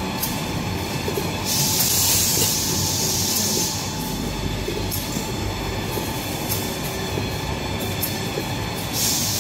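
Glue-laminated toilet paper and kitchen towel production line running: a steady mechanical clatter and hum. Loud hissing bursts rise over it, one from about a second and a half in lasting about two seconds, and another starting near the end.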